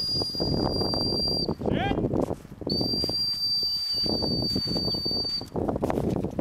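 Two long, steady blasts on a gundog training whistle, each a single unwavering high note, with a pause of about a second between them. Under the whistle, footsteps crunch through snow.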